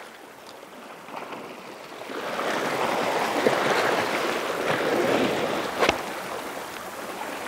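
Sea water rushing and washing against shore rocks, a steady noise that swells for a few seconds in the middle, with a single sharp click about six seconds in.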